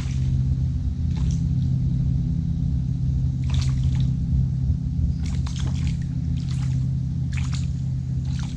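A hooked perch splashing at the water's surface as it is played in on a float rod: a series of short, irregular splashes.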